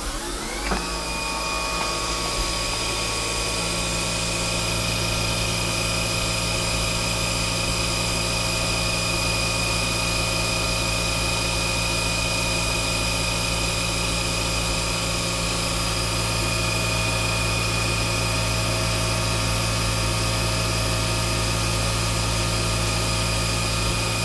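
CNC vertical mill spindle spinning up about a second in, then running steadily with a high whine over a low machine hum, as a chamfering tool deburrs the edges of brass parts held in a gang fixture.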